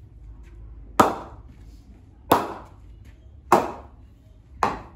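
Ping test on an SS DK Finisher 2 grade 2 English willow cricket bat: a cricket ball bounced on the bat face four times, about one knock every second and a bit. Each knock is sharp and rings away briefly.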